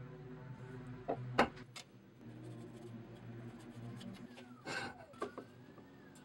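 Handling noises on a wooden workbench as an axe handle and tools are moved and laid down: a sharp knock about a second and a half in, a lighter tap soon after, and a brief scrape near the end, over a low steady hum.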